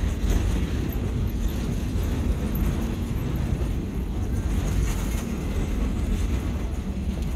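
Steady low rumble of a passenger train running along the track, heard from its open-air car.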